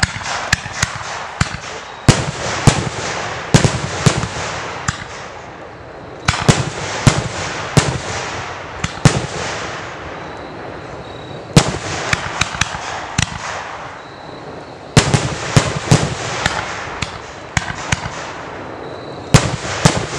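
Fireworks firing in volleys: sharp bangs several a second over a crackling hiss, in bursts of a few seconds each with short lulls between.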